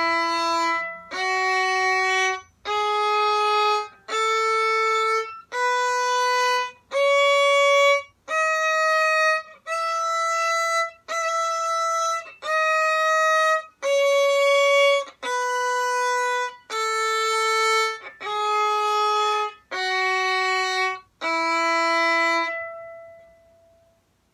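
Violin playing a one-octave E major scale up and back down, one separately bowed note about every second, the last low E held and fading away.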